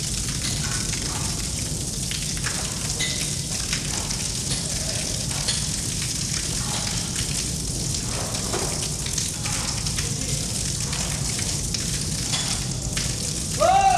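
Steady hiss of water falling and running in a tunnel, with faint scattered drips. Near the end a sudden loud held tone, like a shout, cuts in.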